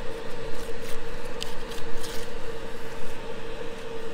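A knife cutting through the skin and flesh of a swordfish, with soft scraping and slicing sounds and a few small clicks. A steady hum of machinery runs underneath.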